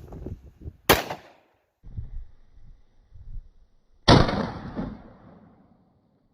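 A Taurus Judge revolver fires a single .410 shotshell loaded with #4 shot, a sudden loud blast about four seconds in that rings off over a second or so. A sharp click about a second in comes before it.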